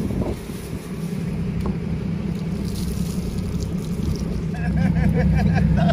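A motorboat's engine idling steadily, growing louder near the end, with a quick run of short repeated high notes over it at the end.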